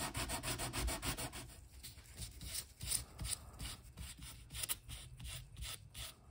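A small sanding block is rubbed by hand over a freshly glued wood veneer patch in light, quick back-and-forth strokes, about five a second. After about a second and a half the strokes thin out to a few scattered rubs.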